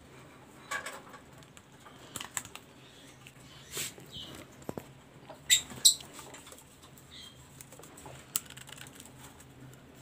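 Scattered clicks, taps and rustles from handling a wire-mesh budgerigar cage and its nest box, the loudest two sharp clicks close together about five and a half seconds in. Twice a short, faint budgie chirp.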